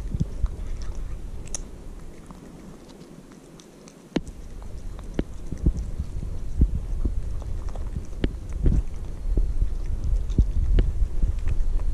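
Kitten eating cat food from a dish close to the microphone: irregular chewing clicks mixed with low thumps. The eating goes quieter for about two seconds, then picks up again, denser and louder.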